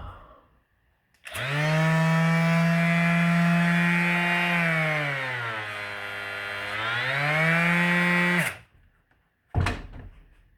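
DeWalt 20V brushless palm sander switched on and running for about seven seconds with a steady hum; its pitch sags for a couple of seconds in the middle, then rises back before it cuts off. A short knock follows about a second later.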